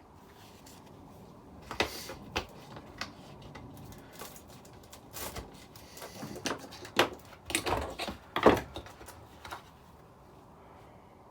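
Air hammer chisel bits and kit parts being handled: irregular clicks and knocks, with the loudest cluster about eight seconds in.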